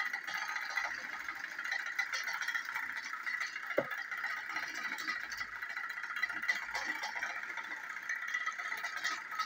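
Battery-powered TrackMaster toy train engines running on plastic track, their small electric motors and gears making a steady high whirring rattle. About four seconds in there is a brief falling squeak.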